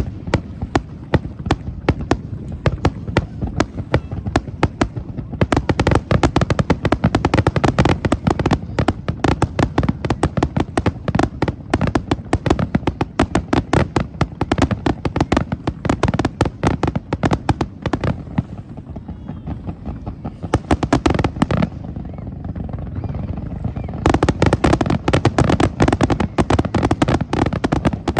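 Fireworks display: a dense, rapid run of bangs and crackles from bursting shells. The barrage thins for a few seconds about two-thirds of the way through, then comes back just as dense near the end.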